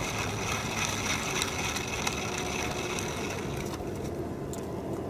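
Steady distant mechanical hum: a low rumble with a faint high whine over it and a few light ticks.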